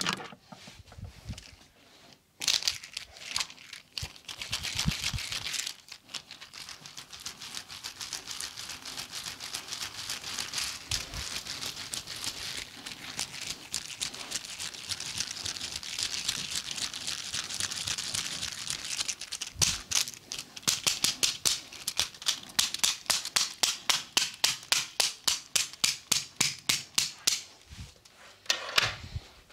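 Hands massaging a person: a long stretch of fast, crinkly rubbing and scrubbing. About twenty seconds in it gives way to rhythmic slaps or chops, about three a second for several seconds.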